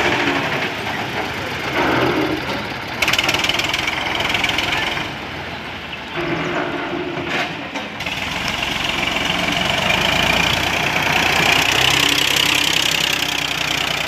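Eicher 548 tractor's three-cylinder diesel engine running as it pulls a trailer loaded with soil, getting louder in the second half as it works harder.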